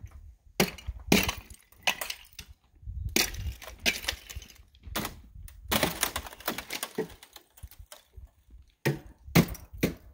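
Thin shore ice on a frozen pond being broken by hand and foot, cracking and crunching in a string of sharp, irregular snaps.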